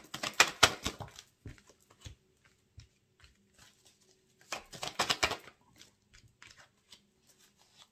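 A deck of oracle cards being shuffled. It comes in two short bursts of rapid clicking about four seconds apart, with a few light ticks in between.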